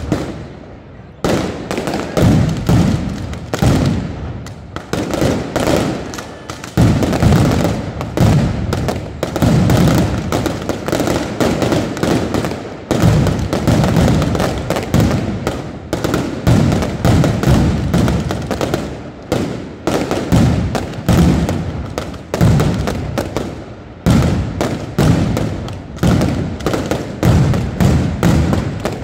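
Night mascletà: a dense, continuous barrage of firecracker bangs and aerial firework bursts, too many to count and merging together. A short lull at the start gives way to the full barrage about a second in.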